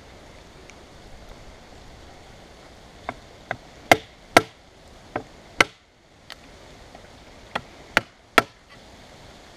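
Knife chopping into wood, a series of sharp knocks: six quick strikes, then after a short pause three more.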